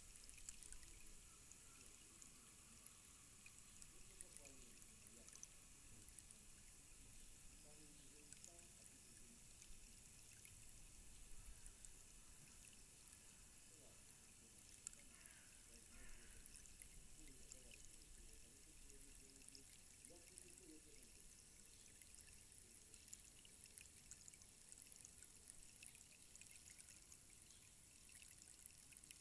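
Tall rainstick standing upright, its filling trickling down inside in a faint, steady patter of fine ticks, like light rain.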